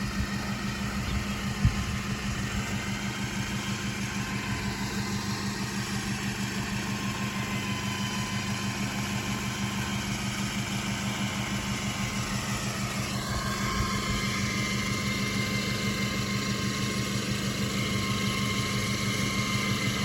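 Toyota Hilux engine idling steadily while its front winch reels in the rope under tension, its motor whining; the whine shifts pitch about two-thirds of the way through.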